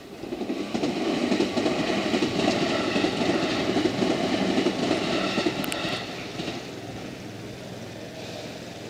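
JR 211-series electric train running past over a level crossing. Its noise swells within the first second, stays loud for about five seconds, then drops away to a quieter rumble.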